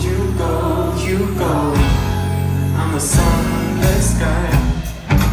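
Live band music through a concert PA, heard from within the crowd: a held bass line under guitar and keyboard chords, with some singing. The music drops briefly about five seconds in and then comes straight back.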